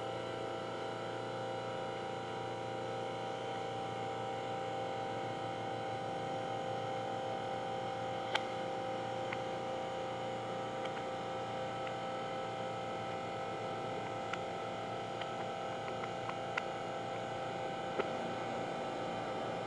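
A steady hum made of several even tones over a faint hiss, broken by a few faint single clicks, the clearest about eight seconds in.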